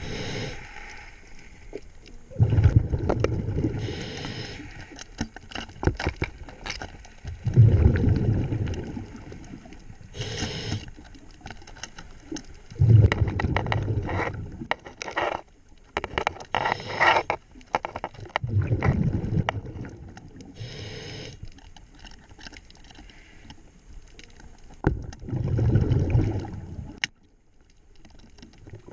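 Scuba diver breathing through a regulator underwater: a hiss on each inhale and a rumbling burst of exhaust bubbles on each exhale, repeating about every five to six seconds, with scattered sharp clicks and taps between breaths.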